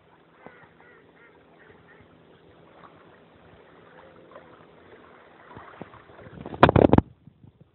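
Mute swans calling softly with short honking notes, followed by a short loud noisy burst near the end.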